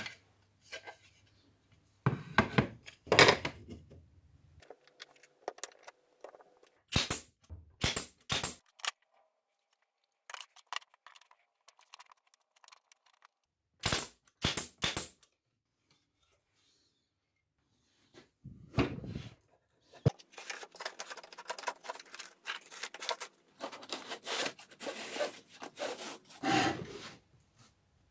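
Handling noise of wooden board pieces: knocks, taps and scraping as they are picked up, shifted and set down on a workbench. The sounds come in short bursts with silent gaps between, and a longer stretch of rubbing and knocking near the end.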